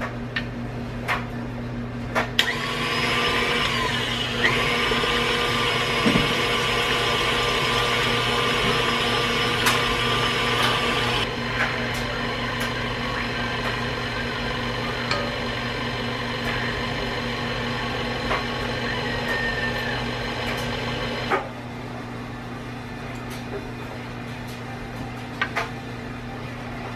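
Electric mixer motor running on bread dough. It starts about two seconds in with a whine, drops to a quieter, lower setting about halfway through, and switches off a few seconds before the end, leaving a steady low hum.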